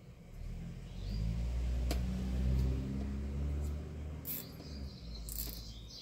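Low engine rumble of a passing vehicle, swelling about half a second in and fading out about five seconds in. A single sharp click comes about two seconds in, and two brief scratchy sounds near the end.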